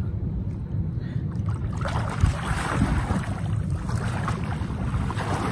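Pool water splashing under a swimmer's breaststroke, starting about two seconds in, over a steady low rumble of wind on the microphone.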